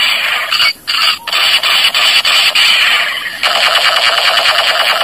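Battery-powered toy sniper rifle's electronic firing sound from its small speaker: a loud, harsh, fast rattle, broken by two short gaps about a second in.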